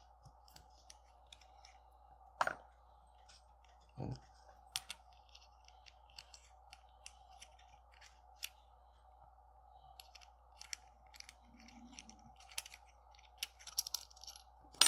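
Scattered light clicks, ticks and scrapes of a small tool working a zirconium haptic fidget coin apart, with two louder knocks about two and a half and four seconds in. A faint steady hum runs underneath.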